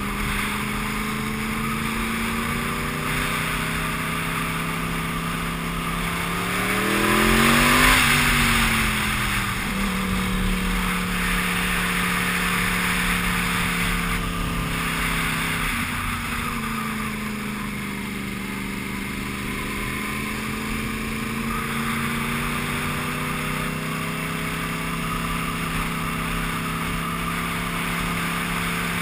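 Sport motorcycle engine pulling steadily up a climb, heard from the rider's seat with wind noise over the microphone. About eight seconds in the engine note rises to a peak and drops back, and it eases off briefly around sixteen seconds before settling again.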